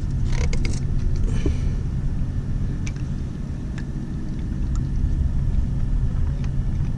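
Steady low rumble with a few light clicks and taps.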